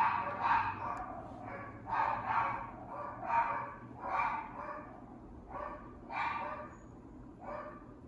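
A dog barking repeatedly: about a dozen short barks, spaced unevenly and often in pairs, fading somewhat toward the end.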